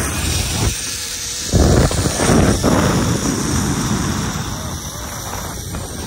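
Wind rushing over the microphone of a camera carried along a zip line ride, buffeting in the low range. It surges loudest about a second and a half in, then slowly eases off.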